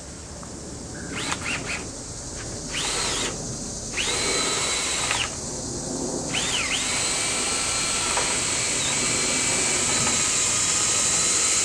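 Power drill running in short bursts, its whine spinning up each time, then running steadily from about six seconds in. Most likely it is driving a rotary dryer-vent cleaning brush through the duct.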